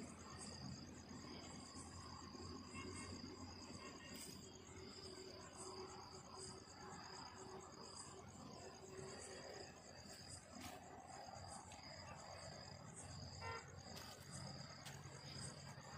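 Crickets chirping: a faint, steady high-pitched trill that pulses at an even rate, in a quiet night garden.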